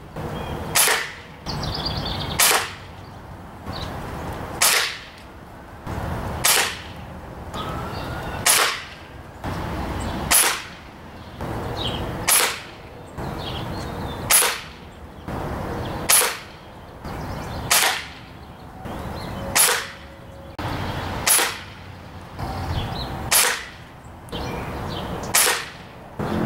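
Ruger Air Magnum break-barrel spring-piston air rifle, fitted with a .25 calibre barrel, firing shot after shot: about fourteen sharp cracks, roughly two seconds apart.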